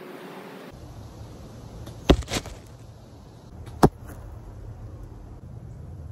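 Arrows striking a layered foam-block archery target: two sharp thwacks a quarter of a second apart about two seconds in, then a single one near the four-second mark.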